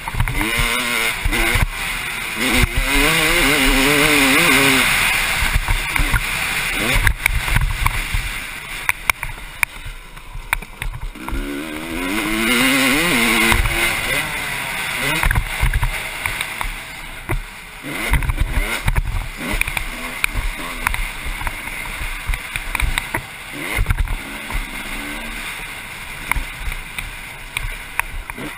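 1996 Honda CR250's single-cylinder two-stroke engine revving up and down as the bike is ridden hard on a dirt trail, its pitch climbing through the gears twice. Wind noise on the microphone and knocks from the rough ground run underneath.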